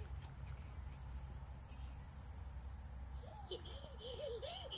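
Steady high-pitched insect chorus. From about three seconds in, a small child's high voice makes short rising-and-falling calls over it.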